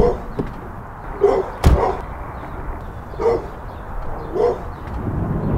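A dog barking, single barks a second or two apart, with one sharp slam about a second and a half in.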